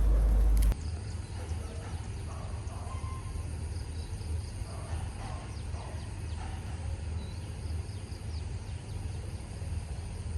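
Rural outdoor ambience: a steady low rumble with a faint high insect drone and a few soft, short bird-like chirps. A louder low rumble cuts off abruptly under a second in.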